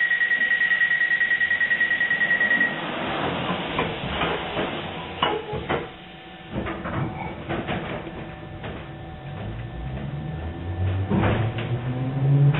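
London Underground District line D78 stock train: the door-closing warning beeps sound for about three seconds, then the sliding doors shut with a series of knocks and clicks. Near the end the traction motors start a rising whine as the train pulls away.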